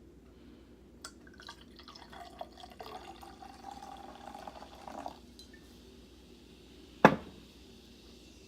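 Wine poured into a glass for about three seconds, a steady pouring tone that stops abruptly, followed about two seconds later by a single sharp knock.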